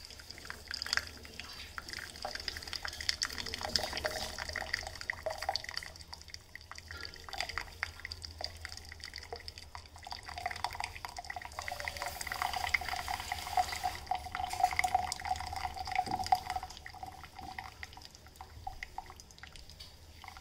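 Rose water poured from a glass kettle through its strainer lid into a glass mug, trickling in a thin stream with many small drips and splashes.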